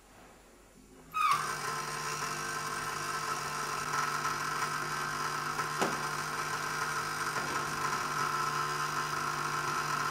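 High-voltage induction coil switched on about a second in and buzzing steadily as it drives a Crookes tube, with one sharp click near the middle; it cuts off suddenly at the end.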